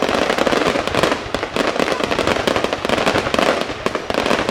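Fireworks display in a dense, continuous barrage: many bangs and crackles every second, overlapping without a pause.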